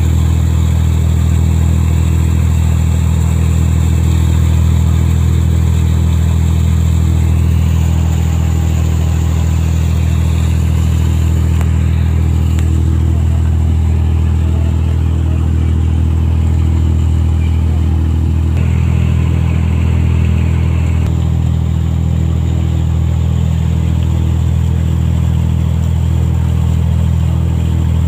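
A passenger boat's engine running steadily under way, a deep, even drone, with water rushing and splashing along the hull.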